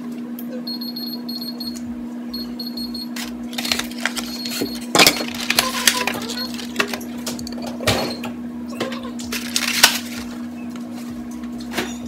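Kitchen appliance keypad beeping: two quick runs of short high beeps about a second apart. Then boxes, packages and dishes are handled and set down on the counter, with clatter and knocks, over a steady low hum.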